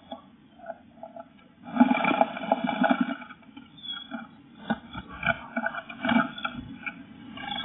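A blue tit scrabbling about inside a wooden nest box: claws scratching on the bare wood and moss, with rustling wing flutters, picked up close by the box's camera microphone. A dense burst of scratching about two seconds in, then scattered scratches and sharp taps.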